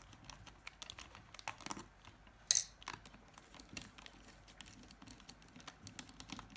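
Small plastic clicks and creaks as the front cover of a Nokia 6150 mobile phone is prised off its body, with one sharper snap about two and a half seconds in.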